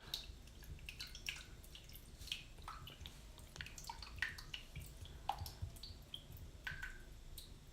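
Water dripping: faint, irregular plinks at varying pitches, several a second, over a low steady rumble.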